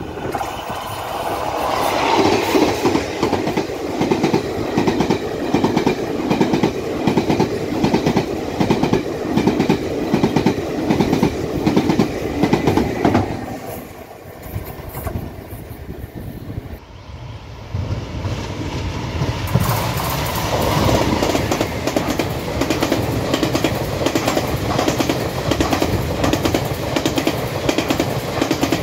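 Taiwan Railway E-class electric locomotive hauling a push-pull (PP) express trainset past, its wheels clacking in a steady rhythm over the rail joints; the sound fades about 13 seconds in. After a short lull a second locomotive-hauled push-pull set passes, clacking steadily.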